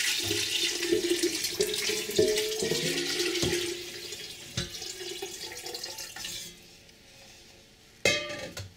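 Warm chicken stock poured steadily from a stainless steel pot into a black earthenware pot over pieces of plantain and yuca, a splashing gush that tapers off after about six seconds. A brief clatter comes near the end.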